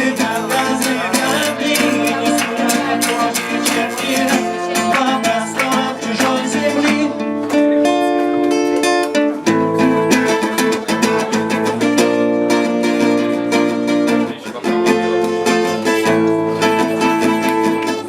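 Acoustic guitar strummed through a song's closing instrumental passage, with a wordless wavering melody line over the first several seconds.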